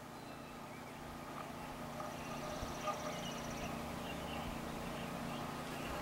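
Faint summer pasture ambience: scattered small bird chirps over a steady low hum, with a rapid high trill lasting about a second and a half from about two seconds in.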